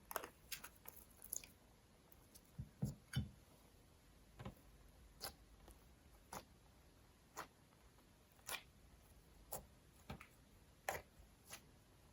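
Slime being pressed and folded by hand, giving small sticky clicks and pops about once a second, with a quick cluster of them near the start and a few duller squelches around three seconds in.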